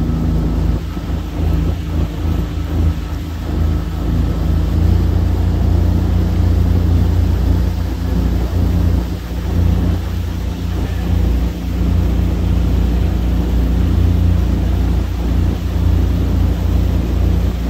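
Small boat's motor running steadily under way, a low drone with a few steady pitched tones, mixed with water and wind noise over the hull.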